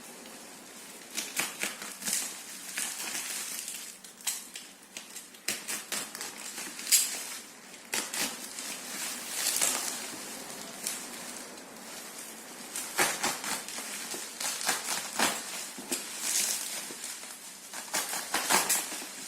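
Irregular small clicks and taps mixed with short rustling or scraping sounds, spread unevenly with no steady rhythm.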